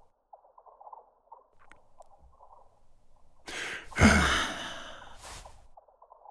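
A long breathy sigh about three and a half seconds in, dropping in pitch as it fades. A faint, thin crackling runs underneath.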